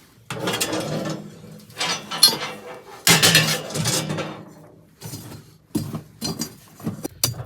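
Hard objects being handled: scraping and rustling for the first few seconds, then a run of short sharp clinks and knocks.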